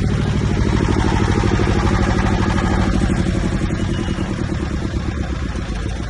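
Twin-cylinder diesel engine of a 30 kVA Bajaj soundproof generator set running steadily inside its acoustic enclosure, with an even firing beat; it gets gradually quieter over the last few seconds.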